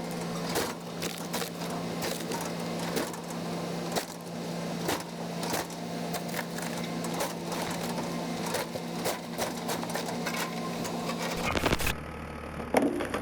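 Excavator with a log-splitting attachment at work: a steady engine hum under frequent, irregular cracks and knocks of wood splitting. About twelve seconds in, the sound cuts abruptly to a duller, different machine scene.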